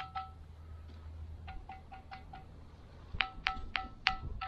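A pebble tapped repeatedly against a large ringing boulder, a 'singing rock': each tap gives a short, bell-like ringing tone, really echoey. A run of quick lighter taps comes in the middle, then several louder taps near the end.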